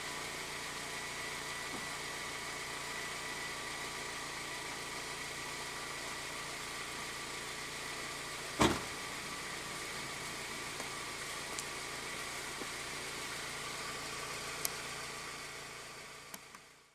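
Honda Civic Type R EP3's K20A 2.0-litre four-cylinder idling steadily through its stock exhaust while warming up. A single sharp knock about halfway through, and the sound fades out near the end.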